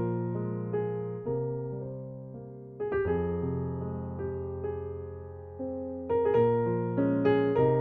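Background piano music: slow, soft chords, each struck and left to ring and fade.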